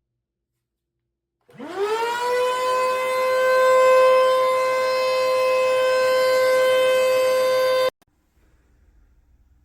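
Upright vacuum cleaner motor switched on: a whine that rises quickly in pitch as the motor spins up, then holds steady, and cuts off abruptly near the end.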